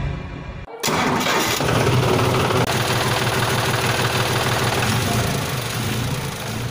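An engine starts abruptly about a second in, then keeps running steadily.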